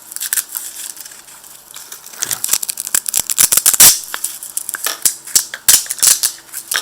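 Knife sheath being handled, its Velcro strap crackling and ripping in quick irregular rasps, the loudest about four seconds in.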